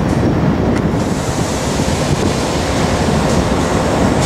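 Wind buffeting the microphone: a loud, steady rumbling rush with no clear tones in it.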